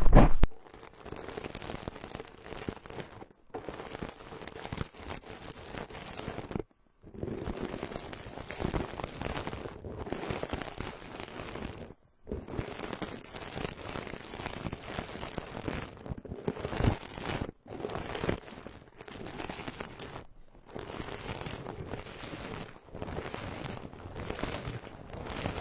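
Bristles scrubbing and sweeping against a binaural microphone: a dense, crackly scratching that stops briefly every few seconds.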